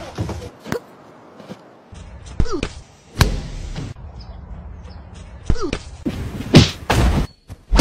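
A run of sharp thuds and slams at uneven intervals, the loudest near the end, with a few short falling vocal sounds in between.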